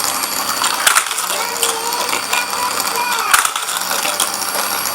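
A toy whose pieces are set going and roll along a track, clattering and rattling without a break, with a sharp click now and then.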